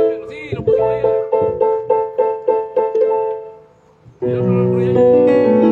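Yamaha synthesizer keyboard played with a piano sound: a run of short, quick chords, about four a second, then a brief pause and a long held chord starting about four seconds in.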